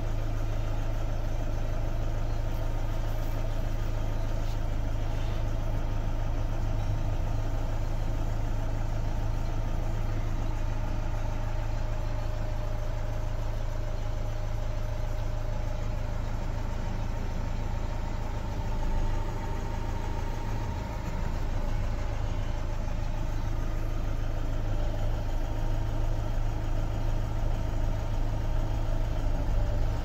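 Diesel engine of an Iveco 72C17 refrigerated truck idling with a steady low hum.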